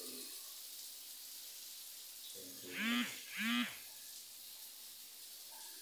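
Two short voiced calls, each rising then falling in pitch, about half a second apart, over a steady faint hiss.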